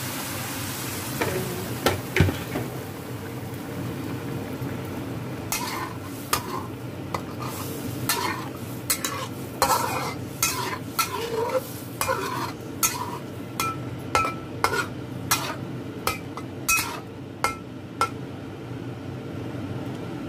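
Hot water pours into a hot wok with a hiss that dies down in the first few seconds. Then a metal spatula stirs and scrapes fish curry around the wok, with repeated clinks and scrapes against the pan over the curry's steady simmer.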